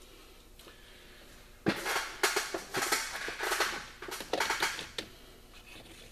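Metal hand tools clinking and clattering in quick, irregular strikes for about three seconds, starting a second and a half or so in, as pliers are worked in toward the pulley's snap ring.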